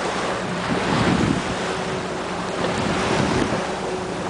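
Wind buffeting the microphone over the sound of water lapping around a boat on open sea, swelling a couple of times. A faint steady hum joins in about two seconds in.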